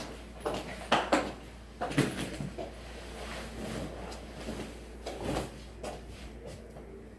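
A person walking in on a hard floor, with clacking footsteps and knocks as bags and a jacket are put down on a bed, and rustling of fabric and bag.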